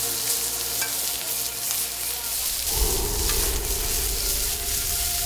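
A wood fire crackling and hissing in a metal drum stove, then, from about halfway, pork belly slices sizzling on a hot grill plate.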